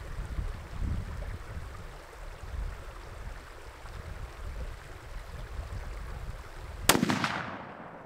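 Wind buffeting the microphone, then about seven seconds in a single rifle shot, the loudest sound, with its echo dying away over about a second.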